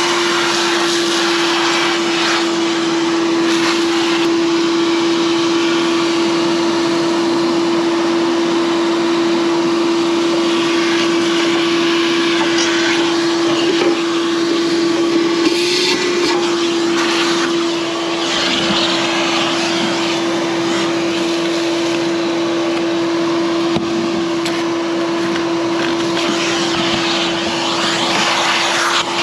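Vacuum cleaner running steadily: a constant hum over the rush of air.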